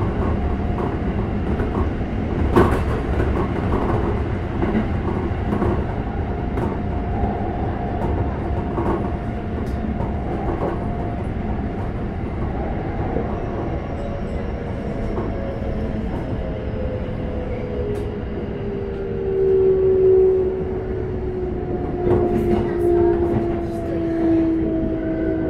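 Keikyu 600 series train with Toyo GTO-VVVF traction control heard from inside the car: steady wheel-on-rail rumble with occasional clicks at rail joints. From about halfway a GTO inverter whine slides down in pitch, loudest about three-quarters through, typical of the motors braking as the train slows.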